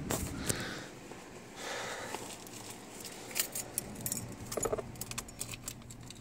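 Car keys jangling on their ring, with scattered light clicks and rustling from handling.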